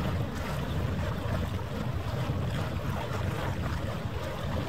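Outdoor waterfront ambience: wind buffeting the microphone over a steady low rumble, with no distinct events.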